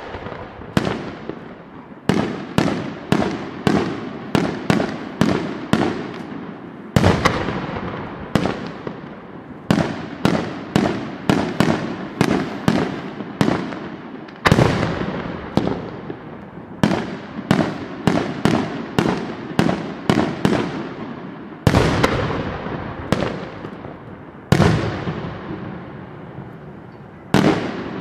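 Aerial firework shells bursting in quick succession: sharp bangs about two a second, each trailing off in an echo, with a heavier single bang every few seconds.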